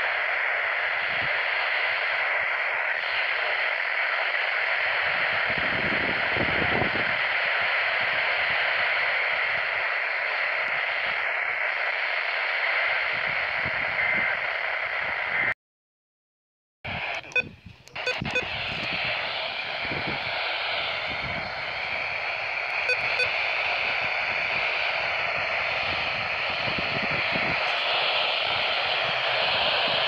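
Handheld Midland NOAA weather radio hissing with static on a weak signal that is barely coming through. The sound cuts out completely for about a second halfway through, followed by a few handling clicks.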